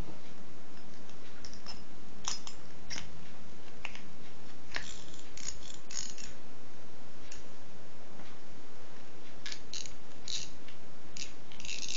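Small scattered clicks and taps of a spinning fishing reel being put back together, as its spool and drag knob are fitted back onto the reel. The clicks come in a bunch about five to six seconds in and again near the end.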